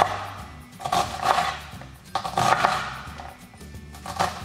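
Chef's knife chopping down through an onion and knocking on a wooden cutting board, several knocks in small groups, over background music.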